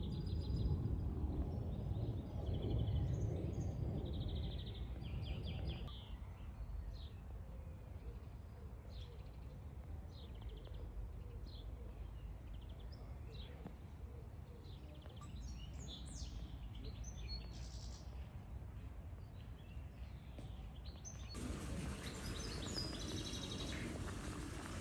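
Outdoor ambience with small birds chirping throughout. For the first six seconds a low rumble runs underneath, from a jet airliner flying over; near the end the background turns louder and hissier.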